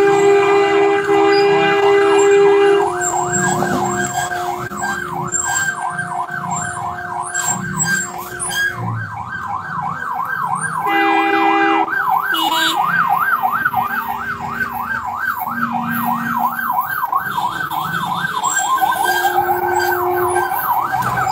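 A siren yelping rapidly up and down, with a steady two-note horn sounding at the start and again briefly twice later. A motorbike engine runs underneath as the bike is ridden.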